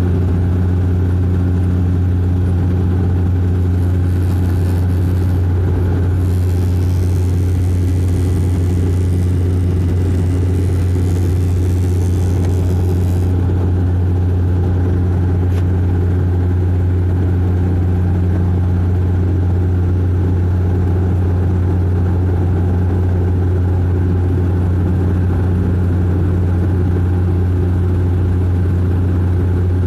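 Steady drone of a De Havilland Canada Dash 8-400's Pratt & Whitney Canada PW150A turboprop engine and six-bladed propeller at climb power, heard inside the cabin: a deep, even hum with higher overtones. A hiss joins in the treble from about four to thirteen seconds in.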